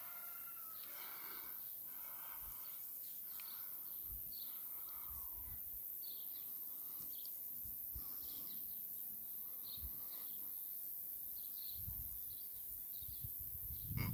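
Small birds chirping, short high calls scattered throughout over a faint steady rural background, with a few low bumps on the microphone.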